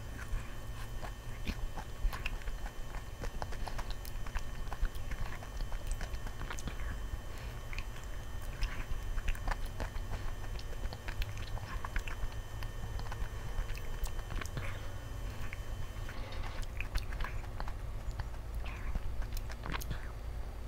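Biting into and chewing a chocolate-coated ice cream bar, picked up close by a clip-on microphone: many small irregular crackles as the hard coating breaks, over a steady low hum.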